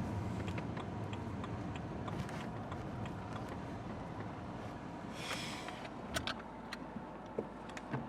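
A car running with a steady low rumble that slowly fades, with a short hiss about five seconds in and a few light clicks near the end.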